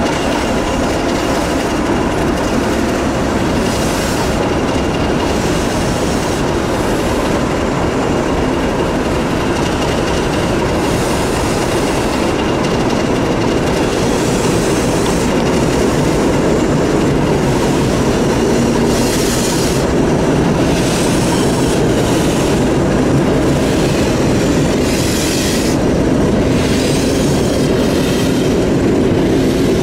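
Passenger railway coach rolling over jointed track and pointwork, heard from the coach's window: wheels clicking over the rail joints every second or two, with a faint steady squeal from the wheels.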